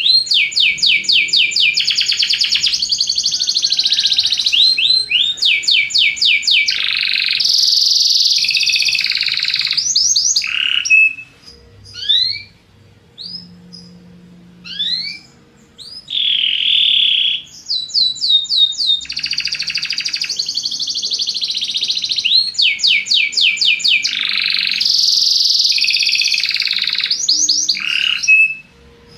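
Belgian canary (domestic canary) singing: long, rapid trills and rolling phrases, broken by a few seconds of short, separate chirps partway through before the full song resumes.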